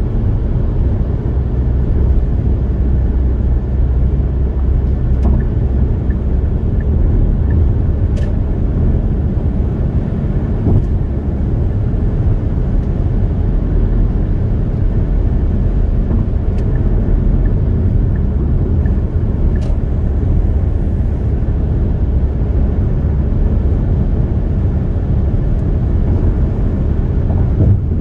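A car cruising on a highway: steady low tyre-and-road rumble with engine drone, and a few faint clicks scattered through it.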